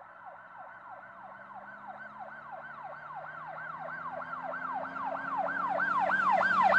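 Emergency-vehicle siren in a fast yelp, its pitch sweeping up and down about three times a second over a low steady hum, starting faint and growing steadily louder as if approaching.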